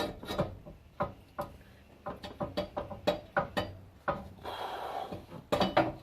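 Irregular metal knocks and clicks, with a short scraping rasp about four and a half seconds in, from hand tools working a seized exhaust bolt loose.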